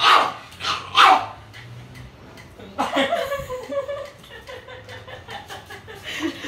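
Angry pug barking sharply three times in quick succession, then a quieter, drawn-out wavering whine-like sound for about three seconds.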